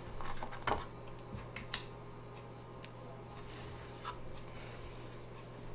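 A paper broth carton being handled and its plastic cap twisted open: a few sharp clicks and light rustling, over a low steady hum from the air fryer oven preheating.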